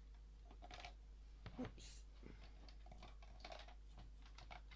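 Faint clicks and taps of plastic Lego pieces and minifigures being handled and pressed into place, with a brief clatter around a spoken "oops" as part of the model comes apart.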